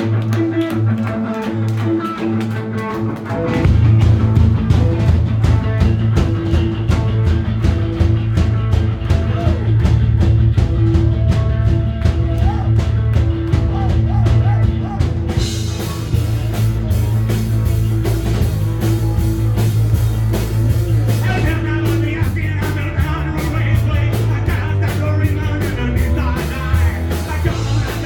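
Punk rock band playing live: a guitar alone at first, with bass and drums coming in about three and a half seconds in, and crashing cymbals joining about halfway.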